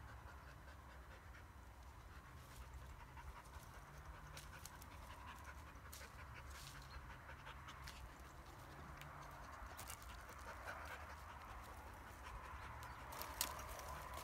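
Kars shepherd dog panting, with scattered snaps and crackles of dry twigs and brush as it moves through them, the sharpest snap near the end.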